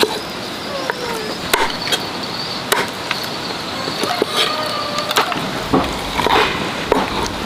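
A cleaver chopping through a boiled chicken on a chopping board: several sharp chops at uneven intervals. A steady high insect drone runs underneath.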